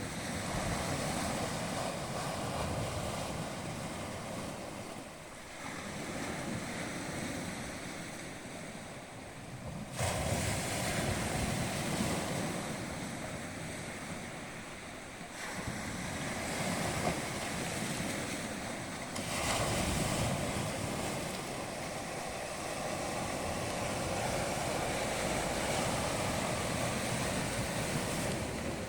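Sea waves washing on the shore, with wind rumbling on the microphone. The sound changes abruptly about 10, 15 and 19 seconds in, as if separate recordings were spliced together.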